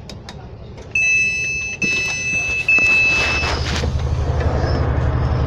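Train door warning alarm beeping, a steady high tone sounded in three stretches, followed by the rumble of the train as the doors shut and it moves.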